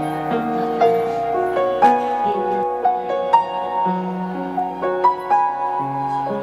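Background instrumental music: a slow melody of held notes, struck one after another.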